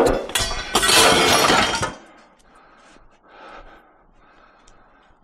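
Scrap steel bars and box tube thrown onto a heap of scrap metal, crashing and clanging with a metallic ring for the first two seconds. Faint knocks follow.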